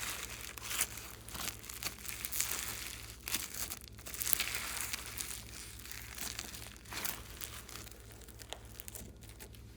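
Slime being worked by hand, with a dense, irregular crinkling and crackling that eases off near the end.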